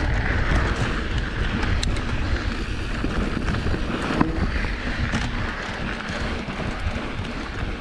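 Wind rumbling on the microphone over the crunch of mountain bike tyres rolling on a dry dirt trail, with a few sharp clicks and knocks from the bike, the loudest about four seconds in.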